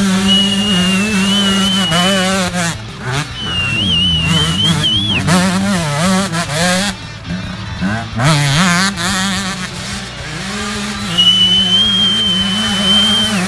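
Enduro dirt bike engines revving up and dropping back again and again as the bikes accelerate through the course.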